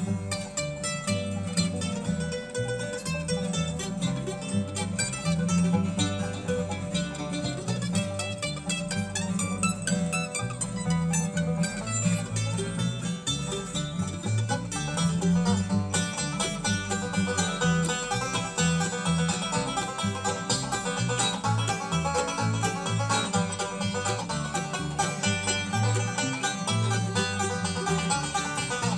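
Live bluegrass band playing an instrumental break with no singing: fast banjo picking over strummed guitar and a bass line.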